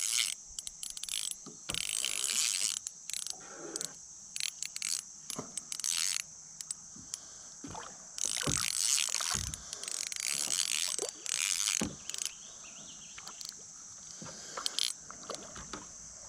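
Fishing reel being cranked in irregular bursts of gear whirring, with a few light knocks, as a fish is reeled in.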